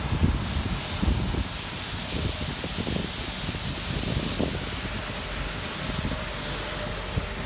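Wind buffeting the microphone in gusts over a steady hiss of rain and street traffic.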